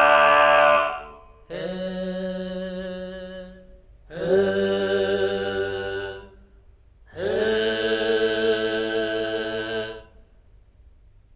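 Sampled deep chanting voice from a virtual-instrument library, holding long sung notes with strong overtones. A held note fades about a second in, then three notes of two to three seconds each follow with short pauses between them.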